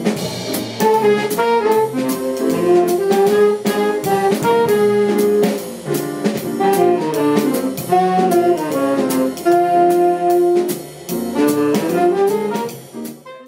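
Small jazz band playing live: a saxophone section carries the melody over drum kit and cymbals, with upright bass underneath. The music breaks off near the end.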